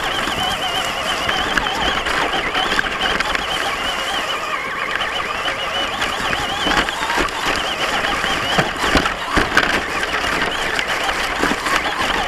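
Traxxas Stampede RC monster truck driving over grass, heard close up from on board: a high motor and gear whine that rises and falls with the throttle, with knocks and thumps as the truck bounces over the ground, the loudest about seven and nine seconds in.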